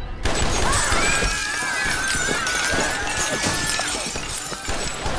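Handgun fire and shattering glass: after a sudden start, a volley of shots breaks through plate-glass windows, with glass crashing and clattering continuously. A high wavering tone runs over it for about three seconds.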